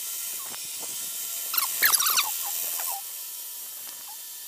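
End mill cutting a slot in a cold-rolled steel block on a milling machine: a steady machine running sound with a handful of short, high squeals from the cutter in the steel about halfway through. It gets a little quieter after about three seconds.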